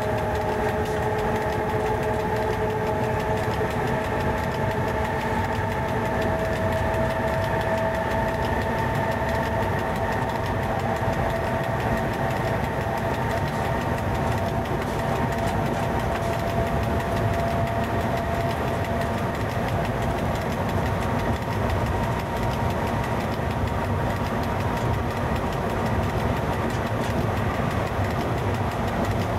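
Steady running noise in the cab of an FS E.656 electric locomotive moving at speed, with a whine of several held tones over it, one of which rises slightly in pitch.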